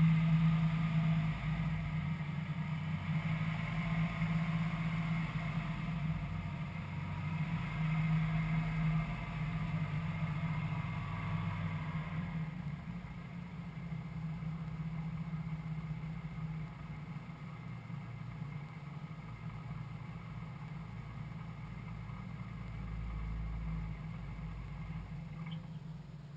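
Light aircraft's piston engine idling steadily on the ground with the propeller turning, heard from inside the cockpit. About halfway through the higher part of the sound drops away, and it grows gradually quieter.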